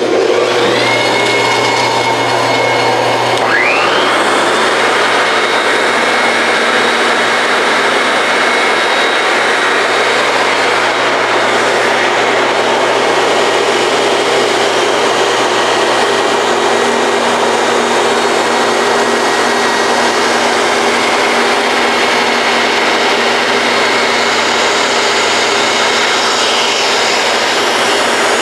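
Forrest Model 989 dust collector's motor and the Model 230 bandsaw switched on, two rising whines as the motors spin up in the first few seconds, then a loud steady running like a large vacuum while a board is fed through the blade for a test cut.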